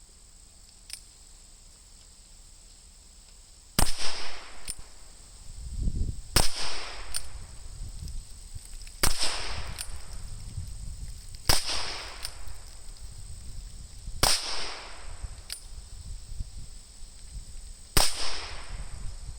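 Six .22 Long Rifle shots from a Ruger Super Wrangler single-action revolver, fired slowly one at a time, two and a half to four seconds apart, each a sharp crack with a short ringing tail.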